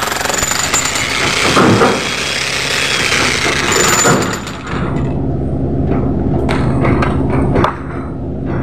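Handheld jackhammer breaking very hard concrete on a bridge post, hammering rapidly and almost without a break. The hammering dips briefly about four and a half seconds in and again near the end.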